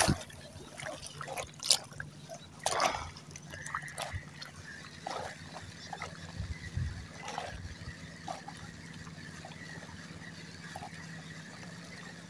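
Small water sounds: gentle lapping and trickling, with a few short splashes or knocks in the first three seconds.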